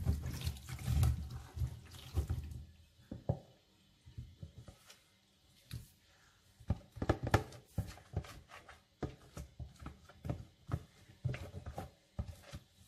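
Buttermilk poured from a container through a metal mesh strainer, splashing into the bowl below as churned butter is strained off, mostly in the first couple of seconds. Then scattered knocks and taps as the strainer and container are handled and lumps of butter drop in.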